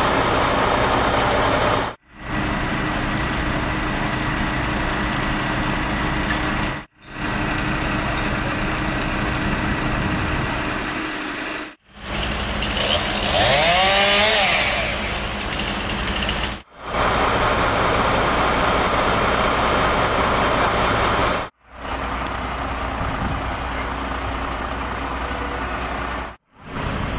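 Steady hum of idling engines, broken into several stretches by sudden brief dropouts, with a short wavering tone about halfway through.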